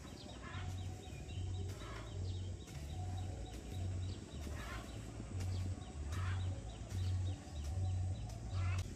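Hoe chopping and scraping into dry dirt in repeated strokes, over a low pulsing thump about twice a second, with birds chirping.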